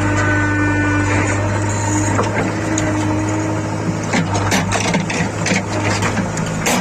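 JCB backhoe loader's diesel engine running steadily, with scattered knocks and clatter as material is handled, the sharpest about four and a half seconds in and near the end.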